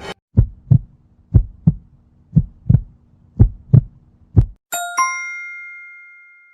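Heartbeat sound effect: paired low thumps about once a second over a faint hum, about five beats, followed by a bright two-note ding that rings out and fades.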